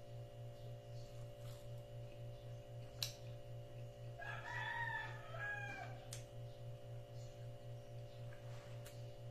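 A rooster crows once, about four seconds in, a call of under two seconds. A steady low hum runs underneath, with a few sharp clicks, the loudest a second before the crow.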